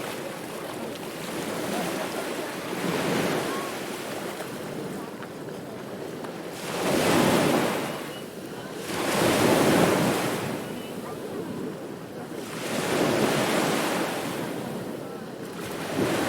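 Ocean waves breaking on a beach, the surf swelling and washing back in slow surges every few seconds. The loudest breakers come about 7, 9.5 and 13 seconds in.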